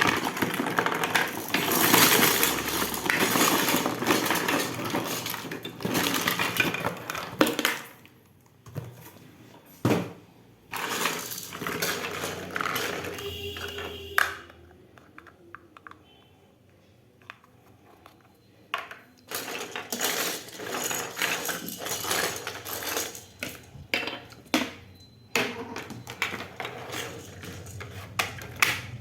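Miniature Hello Kitty toy kitchen pieces being unboxed and handled. Dense rustling of packaging mixed with clicks runs for the first several seconds. After a quiet lull come many small clicks and clinks as the little pieces are picked up and set down.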